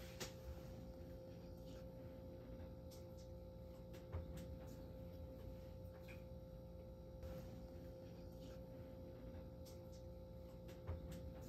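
Faint room tone with a steady, thin hum held on one pitch and a few soft clicks.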